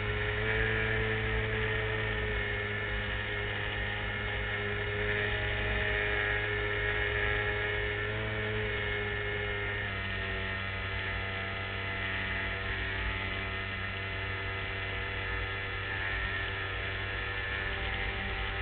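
LazyBee model airplane's motor and propeller running in flight, heard close up from a camera mounted on the wing: a steady hum with a whine above it. The pitch steps down a little about halfway through.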